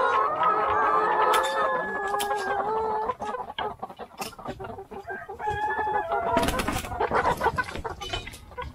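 A flock of brown laying hens clucking and calling, many drawn-out calls overlapping for the first three seconds, then thinning to scattered clucks among sharp clicks, with a short rustling burst about six and a half seconds in.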